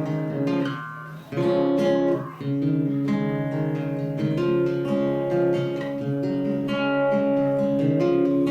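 Acoustic guitar strumming and letting chords ring as the instrumental intro to a country song, with a brief drop in loudness about a second in before the strumming picks up again.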